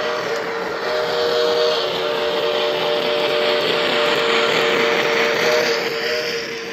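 Model train running on the layout track, a steady hum over wheel noise that swells for a few seconds and drops away near the end.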